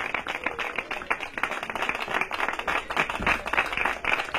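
A small crowd applauding: many hands clapping in a dense, irregular patter.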